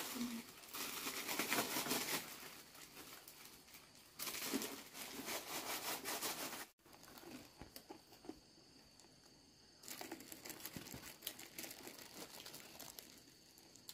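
Intermittent rustling and crinkling noises that break off suddenly about seven seconds in, then go on more faintly.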